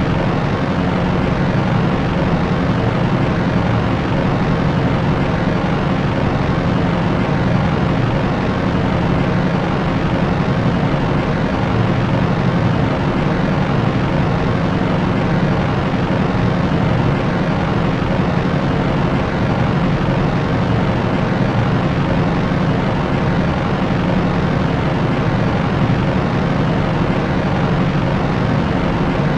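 Propeller aircraft's propellers and engines making a steady, unchanging drone with a low hum, used as continuous white noise.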